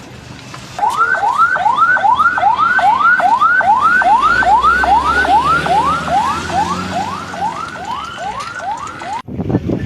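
Electronic emergency siren in fast yelp mode: a pitch that sweeps rapidly up and falls back about twice a second, repeating steadily, then cutting off suddenly near the end.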